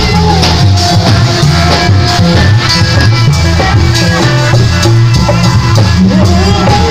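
A Sasak kecimol street band playing loudly. Bass drums, snare and cymbals drive a steady beat under an amplified melody and heavy bass from a loudspeaker stack.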